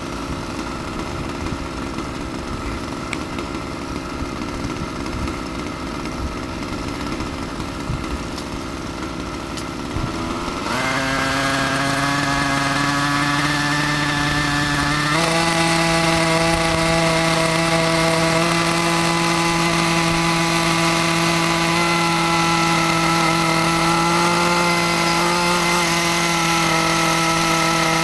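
Align T-Rex 90-class radio-controlled helicopter's nitro glow engine running rough at idle. About ten seconds in, the engine and rotor spool up to a steady pitched whine. The whine steps up again about five seconds later and rises a little more near the end as the helicopter lifts into a low hover.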